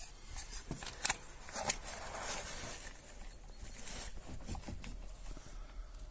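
Knocking from a VAZ 2114's steering rack: two sharp knocks a little over a second in, with fainter knocks and rustling around them. It is the knock of play in the steering rack.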